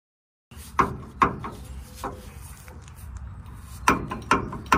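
Silence for about half a second, then several sharp knocks and clunks with rubbing and handling noise in between, from someone working under a truck's rear leaf-spring suspension by a loose shock absorber mount.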